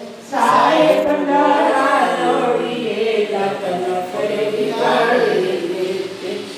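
Several voices chanting a Hindu devotional hymn together, as sung during aarti, in long held sung phrases that begin about a third of a second in.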